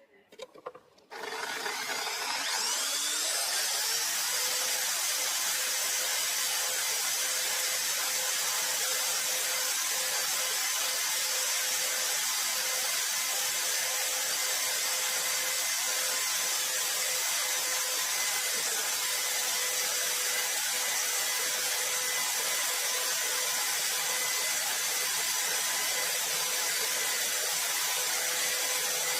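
Power tool starting about a second in, its whine rising briefly as it spins up, then running steadily with a high hissing friction noise: the spinning workpiece is being friction-welded.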